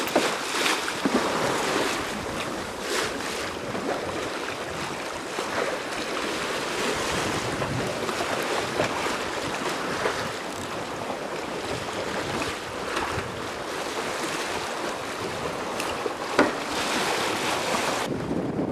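Water rushing and splashing along a sailing yacht's hull under way, with wind buffeting the microphone. A sharp knock or slap stands out about sixteen seconds in.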